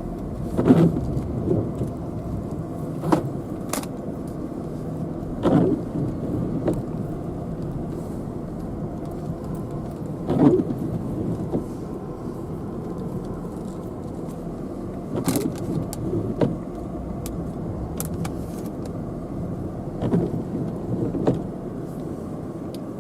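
Steady low engine and road noise inside a Jaguar's cabin as it drives slowly on snow-covered roads, with a short thump or knock every few seconds.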